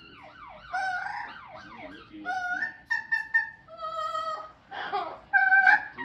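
Amazon parrot singing in imitation of opera: quick sliding notes swooping up and down, then a string of held notes that step between pitches, the loudest near the end.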